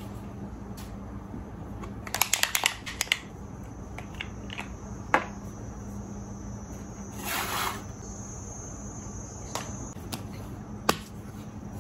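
Small toiletry items handled and set down on a desk: a quick run of clicks about two seconds in, single sharp knocks, and a short rustle midway, over a steady electrical hum.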